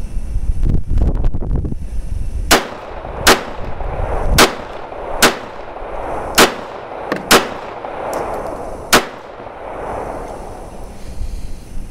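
Seven shots from a P-64 pistol in 9x18 Makarov, fired at a steady pace about a second apart. Each crack is followed by a short echo.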